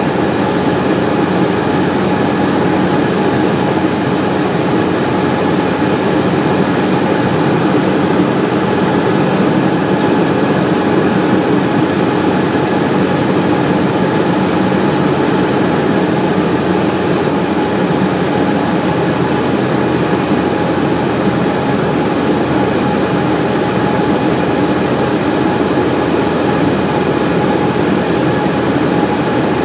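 Cessna's piston engine and propeller running steadily, a constant drone with several steady tones and no change in pitch.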